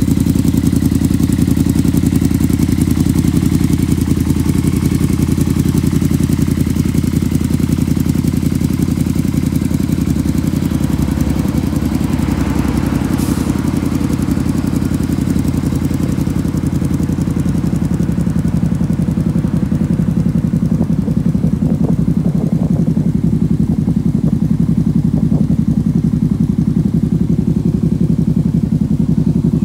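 Yamaha VMax V4 engine in a reverse trike idling steadily, with no revving.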